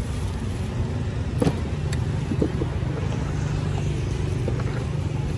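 Steady low rumble of passing road traffic, with a sharp click about a second and a half in and a few fainter knocks.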